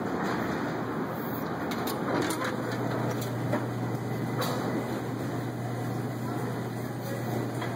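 Steady rushing background noise while walking in through a store's glass entrance doors, with a few faint clicks. A low steady hum sets in about two and a half seconds in, once inside the store.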